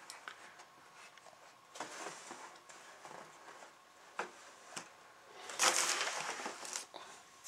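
Cardboard model kit box and its plastic-bagged parts being handled: scattered light taps and rustles, then a louder rustle a little over halfway through.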